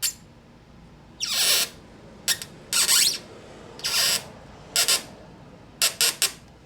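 About seven short, scratchy squeaks and scrapes at irregular intervals, as a threaded insert is turned by hand in the kayak's plastic hull, its threads rubbing against the molding.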